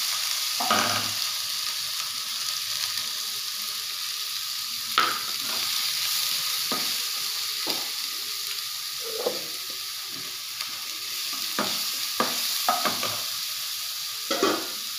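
Chopped onions sizzling as they fry in hot oil, a steady hiss, with scattered knocks and scrapes of a spatula stirring them in the pan, more often from about five seconds in.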